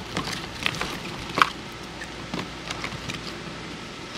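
Cut vegetable pieces (onion, zucchini, mushroom) being handled and dropped into a plastic bowl: a few scattered light taps and clicks, the sharpest about a second and a half in, over a steady background hiss.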